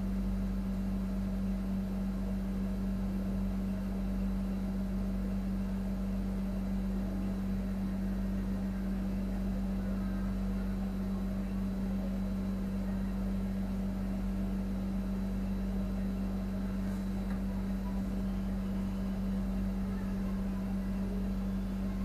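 A steady, unchanging low machine hum, with one strong droning tone.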